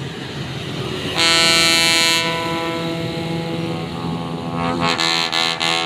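Ship-style air horn ('klakson kapal') on a vehicle, sounding a loud blast about a second in that lasts about a second and then carries on more quietly. A second horn note follows near the end, broken into a run of short toots.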